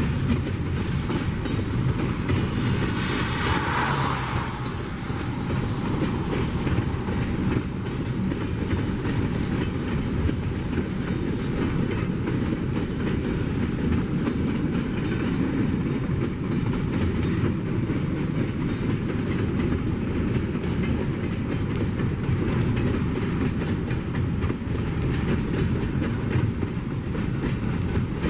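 Loaded container flatcars of a freight train rolling past: a steady rumble with wheels clacking over rail joints, and a brief high hiss about three seconds in.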